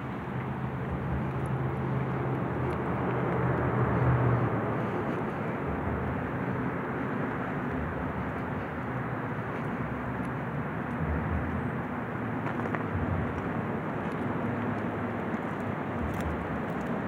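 Outdoor road traffic: a steady rush of passing vehicles, with one vehicle's engine hum swelling to its loudest about four seconds in, then fading.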